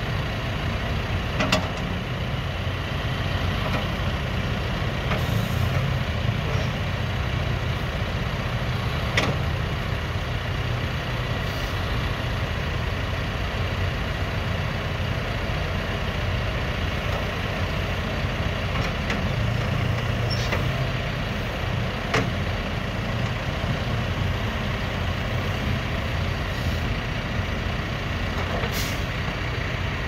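John Deere 310SK backhoe loader's diesel engine idling steadily, with a few sharp clicks about a second and a half in, around nine seconds in and near twenty-two seconds.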